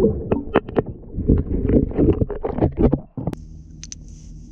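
Irregular muffled knocks and clunks with a rumble of water, picked up by a camera down in the water of an ice-fishing hole. About three seconds in this gives way to a steady low hum with a faint hiss.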